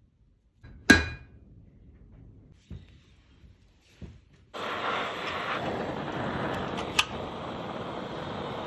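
A sharp metallic clank with brief ringing about a second in, then a few light knocks. About halfway through, a steady rushing noise starts and keeps on, with one more click in it.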